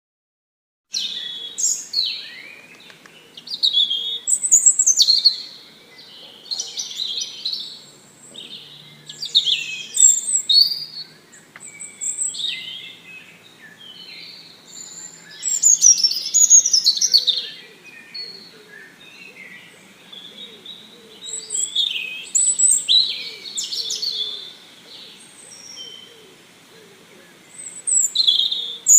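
Songbird chirping and singing in quick, varied high phrases that come in bursts every second or two, starting about a second in.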